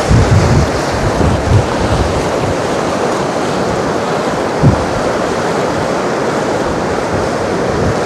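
Storm surf breaking and washing on the shore in a strong wind, with gusts buffeting the microphone as low rumbles, heaviest in the first second or two and in one brief blast about five seconds in.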